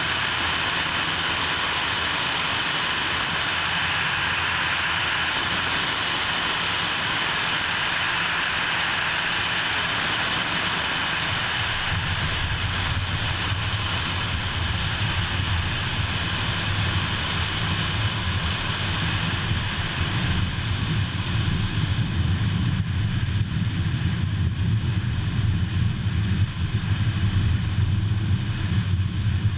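Twin piston engines and propellers of a Cessna 303 Crusader running steadily on a landing approach. About twelve seconds in, the wheels touch down and a low rumble of tyres rolling on a dirt airstrip sets in. The engine sound then fades as power comes off, and the rough rumble grows louder.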